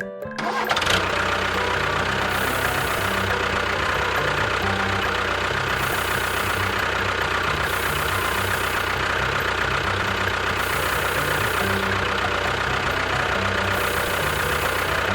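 An engine running steadily at idle, starting about a second in.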